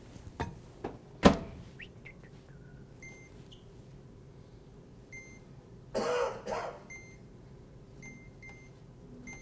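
Built-in microwave being set: a sharp clack about a second in, then the keypad beeps about six times as buttons are pressed, with a brief rustle near the middle.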